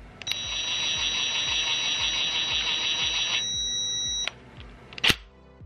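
Cordless power driver spinning a camshaft bearing cap bolt down on a Toyota 2JZ cylinder head through a long socket extension. The motor runs with a steady whine for about three seconds, then stops. A single sharp click comes about five seconds in.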